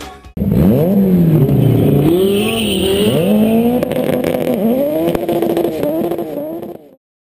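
Car engine accelerating hard down a drag strip, its pitch climbing and dropping back at each upshift, about five times. It cuts off suddenly near the end.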